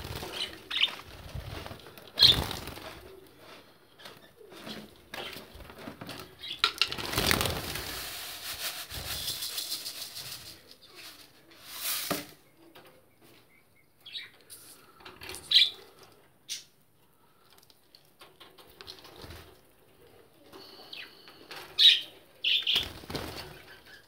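Young budgerigars fluttering and flapping their wings in a wire cage. There are irregular clicks and knocks, and a longer flurry of rustling a few seconds in. A few short high chirps come later.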